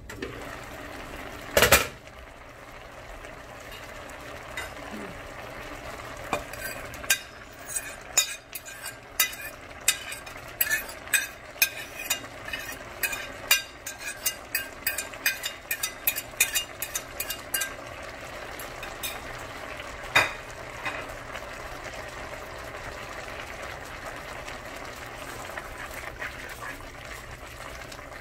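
A pan of collard greens simmering with a steady hiss. A loud clank of the pot lid comes about two seconds in, then a long run of quick clicks and clinks as a utensil works against the pan, and one more clank about twenty seconds in.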